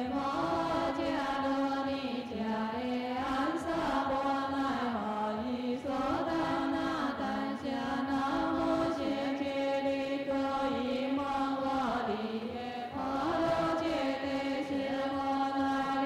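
Chinese Buddhist liturgical chant: voices intoning a slow melodic chant in long held notes that step up and down in pitch.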